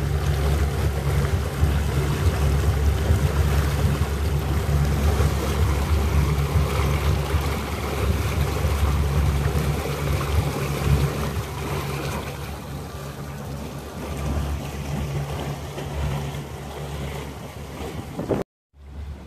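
A motor cruiser under way: the engine running as a steady low drone under the rush of the churning wake and wind buffeting the microphone. The sound cuts out briefly near the end and comes back quieter.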